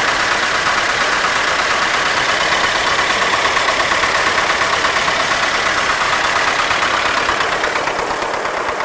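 MTZ-80 tractor's four-cylinder diesel engine running steadily with an even, fast diesel clatter, on its freshly rebuilt injection pump. The sound gets a little quieter near the end.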